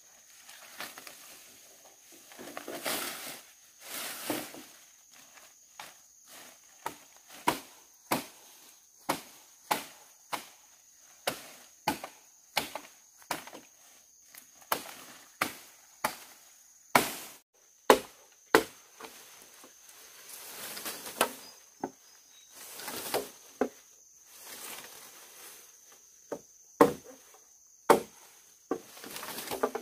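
Repeated sharp chopping knocks, irregular, about one or two a second with a short lull in the middle, a few much louder than the rest. A steady high insect drone runs underneath.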